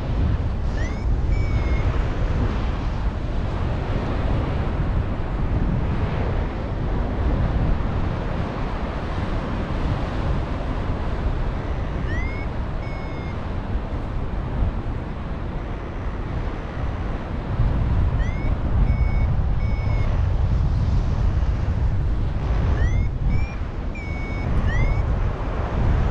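Strong wind buffeting the microphone in flight, with a paragliding variometer beeping at intervals, the climb tone that signals rising air. The beeps come four times, each a short rising chirp followed by a couple of steady higher beeps.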